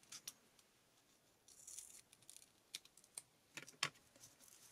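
Faint handling sounds of a roll of double-sided foam tape being pulled out and cut with small scissors: a brief high rustle a little before the middle and a few soft clicks, two close together near the end.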